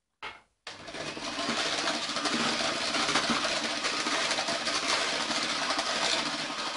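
Electric hand mixer running steadily, its twin wire beaters whisking a thin egg, sugar and milk batter in a plastic bowl. The motor starts about half a second in.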